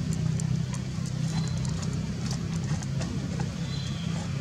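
Short crisp crackles of a baby macaque crunching a cracker and rummaging in a plastic snack packet, over a steady low hum.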